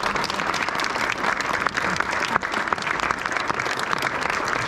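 Theatre audience applauding steadily, a dense mass of clapping hands.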